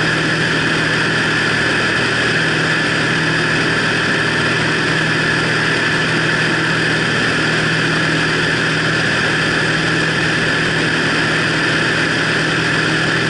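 Piston engine and propeller of a single-engine high-wing light aircraft in flight, droning steadily at constant power, heard from a camera mounted on the wing.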